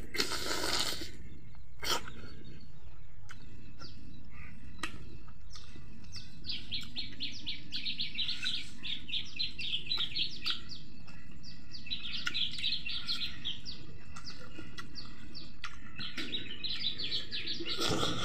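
Rapid high chirping, many short notes a second in runs of a few seconds through the second half, typical of a small bird. Under it, a person eating: a wet mouth sound at the start and a few lip-smack clicks, over a steady low hum.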